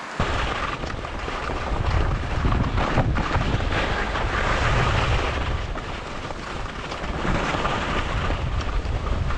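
Wind buffeting the microphone of a skier's camera during a fast downhill run, a heavy rumble, with the hiss of skis sliding over snow underneath.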